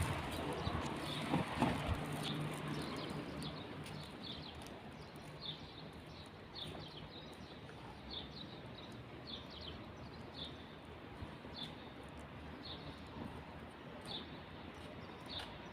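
Faint, short high-pitched chirps from a small animal, one every second or so at irregular intervals, over a steady background hiss.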